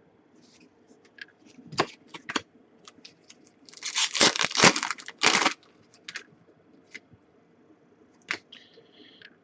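Trading cards and their foil pack wrapper being handled: scattered clicks and scrapes, with a dense stretch of crinkling and tearing noise about four to five and a half seconds in.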